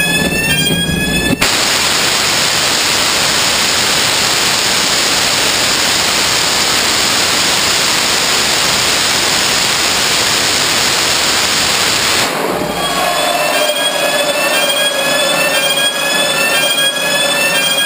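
Hydra 3X hybrid rocket motor (HTPB-aluminium fuel, nitrous oxide oxidiser, about 800 N thrust) on a static test: a sweeping electronic warning tone repeats over the igniter's preheat burn. About a second and a half in, the motor lights into a steady, loud roar that runs for about eleven seconds and then cuts off sharply at shutdown. The warning tone sweeps return over a weaker hiss with a faint steady whistle.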